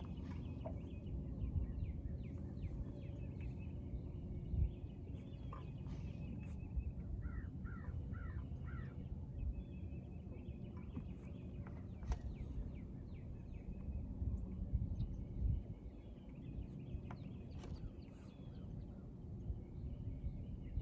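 Wind buffeting the microphone, with birds chirping and calling throughout, including a quick run of four calls about eight seconds in.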